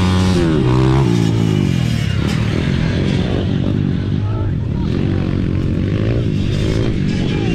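Dirt bike engines revving during a race, pitch climbing and falling again and again as the riders accelerate and shift, with more than one engine heard at once.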